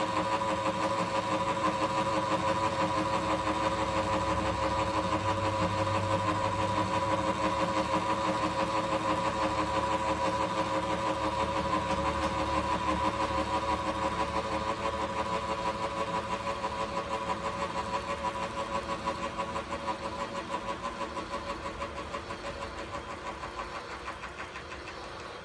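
Atlas milling machine running, a steady mechanical hum with a fast even pulsing. It grows gradually quieter over the second half.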